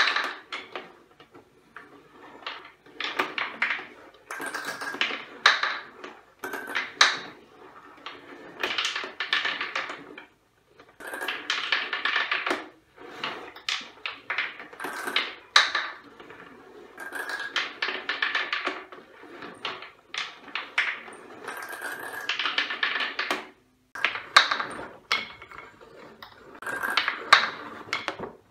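Gumballs rolling and clattering down the zigzag and wavy MDF tracks of a homemade gumball-machine marble run, knocking against the track walls and each other in repeated bursts with short pauses between them.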